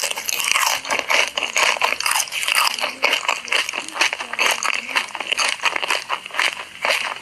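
ASMR eating sounds: rapid, crisp crunching bites and chewing of fried corn dogs, following one another without pause.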